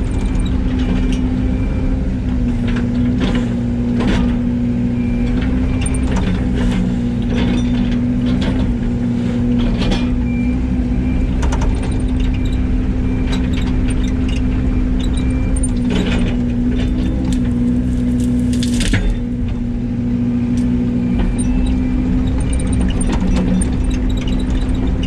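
Yanmar ViO80 excavator's diesel engine running steadily at working speed, with scattered knocks and clanks as it works.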